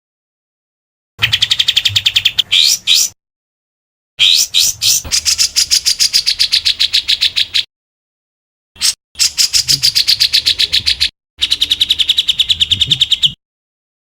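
Recorded songbird 'tembakan' calls: rapid-fire phrases of fast repeated high notes, about ten a second. Five phrases, each from a fraction of a second to over three seconds long, start and stop abruptly with silent gaps between them.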